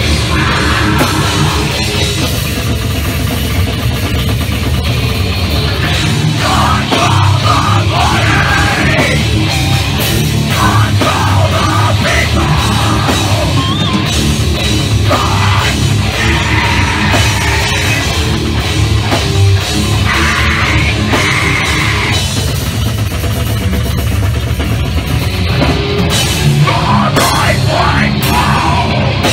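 Deathcore band playing live at full volume: drum kit and guitars with screamed vocals into a handheld mic, without a break.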